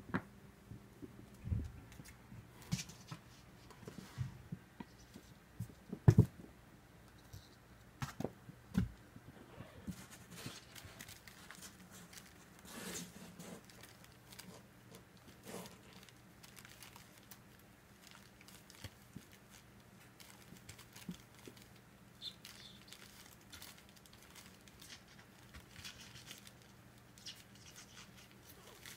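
Small kittens scrambling and playing on fabric: light pattering and scratching of paws and claws, rustling cloth, and scattered sharp knocks and thumps, the loudest about six seconds in. A faint steady hum runs underneath.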